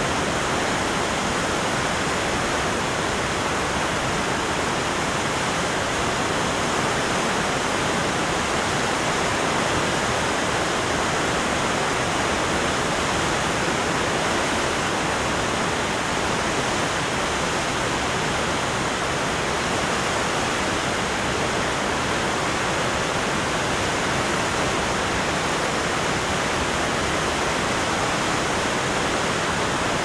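Huka Falls on the Waikato River: a large volume of water pouring over the falls and churning in the turbulent basin below, a loud, steady, unbroken rush.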